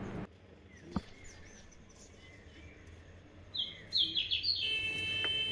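Small birds chirping: a few faint chirps, then a run of loud, quick chirps about three and a half seconds in, followed by a steady high note near the end. A single click about a second in.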